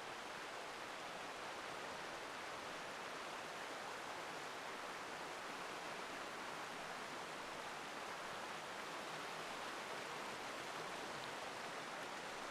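Steady, even rush of a Black Forest stream running over its small cascades, with no change across the stretch.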